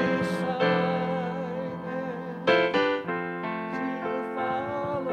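Keyboard music: slow, held chords, with new chords struck about half a second in and again about two and a half seconds in, under a wavering melody line.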